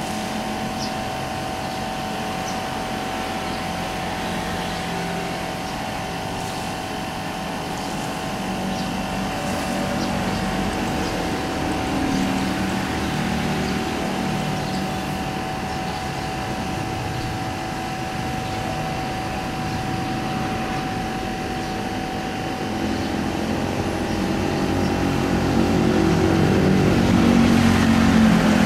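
Boeing 787 airliner's jet engines on final approach: a steady rumble with a held whine, growing louder over the last few seconds as the aircraft comes down to the runway.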